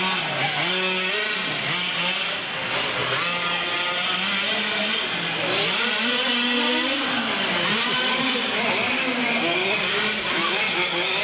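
Radio-controlled monster trucks racing on a dirt track, their small motors revving up and down in a high buzzing whine, with voices in the background.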